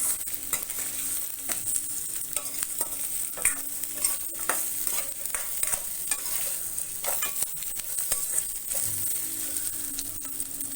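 Grated coconut, onion and whole spices frying in oil in a kadai, sizzling steadily while a spatula stirs, scraping and knocking against the pan now and then. The coconut is being roasted until it turns aromatic.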